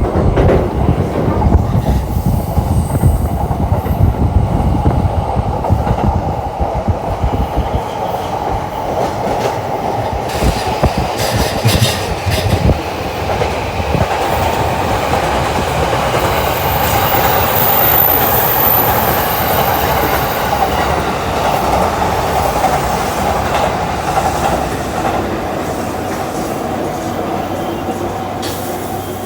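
Doctor Yellow, the yellow shinkansen track-inspection train, running on the rails: a long, steady train noise that swells to its loudest about two-thirds of the way through and begins to fade near the end.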